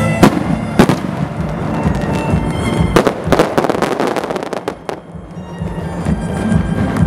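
Aerial fireworks bursting with music playing underneath: two sharp bangs in the first second, then from about three seconds in a rapid run of many bangs and crackles lasting well over a second.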